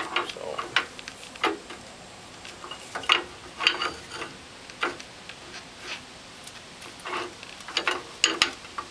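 Irregular metal clicks and scrapes from a hand tool working behind a Ford F-150's rear disc brake rotor. It is backing off parking-brake shoes that are jammed on and holding the rotor in place.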